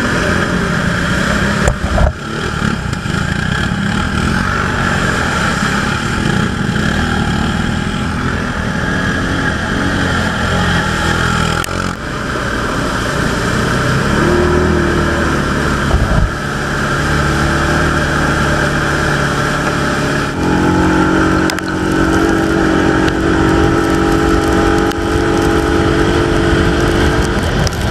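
Segway ATV engine running under way, first crawling through deep mud ruts, then pulling at speed along a dirt track with a constant rush of noise. About twenty seconds in the engine settles onto a higher, steady note.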